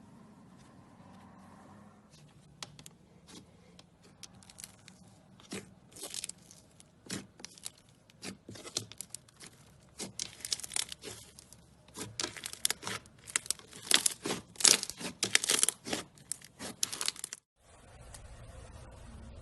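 Slime being squeezed and pulled by hand, giving off crisp crackling, popping clicks. The clicks come sparsely at first, grow dense and louder from about six seconds in, then stop suddenly near the end, giving way to a steady low hiss.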